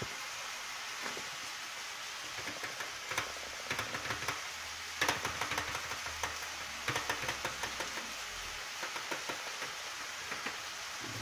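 Flour being poured from a bag onto a digital kitchen scale: spells of soft patter and crinkly ticks over a steady faint hiss.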